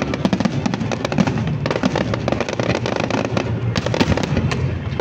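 Fireworks display going off in a dense run of rapid, overlapping bangs and crackles, with the show's accompanying music playing underneath.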